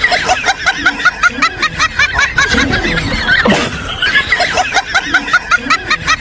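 High-pitched giggling laughter: two long runs of short, rapidly repeated 'hee-hee' notes.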